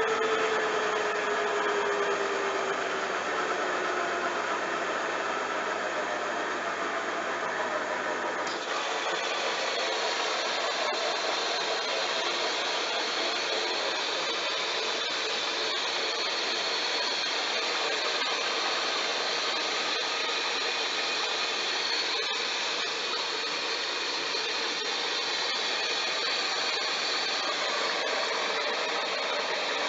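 Bosch washing machine running a wash cycle with towels: a steady whirring, hissing machine noise. In the first few seconds a whine falls in pitch as the motor slows, and about eight seconds in the low hum stops and the hiss turns brighter.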